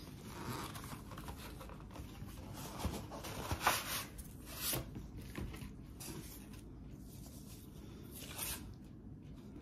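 Packaging being opened by hand: quiet, intermittent tearing and rustling, with a few short, sharper sounds.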